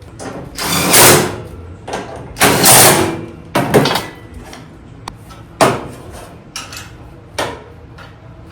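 A power driver running bolts into sheet-metal shrouding in several short bursts, followed by a few sharp metallic clicks and knocks.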